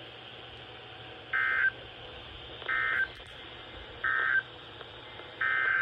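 NOAA Weather Radio's EAS end-of-message: three short bursts of SAME digital data tones, each about a third of a second long and about a second and a half apart, closing the flash flood warning. Near the end a longer data burst begins, the SAME header of the next alert.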